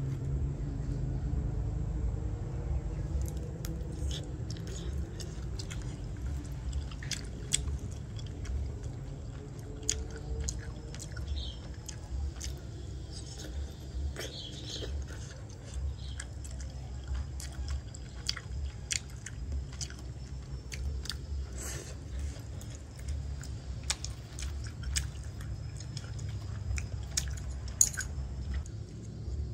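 A person chewing and biting food, with many short wet clicks and smacks from the mouth.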